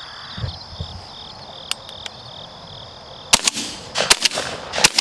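Shotguns fired several times in quick succession by dove hunters, a sharp volley beginning about three seconds in. Crickets trill steadily beforehand.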